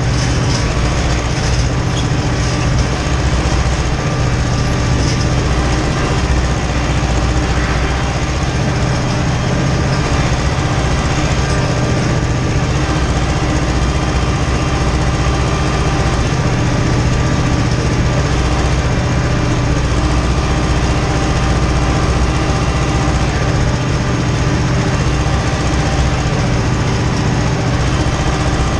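Ursus tractor's diesel engine running steadily, heard from inside the cab, as it pulls a seedbed cultivator across tilled soil.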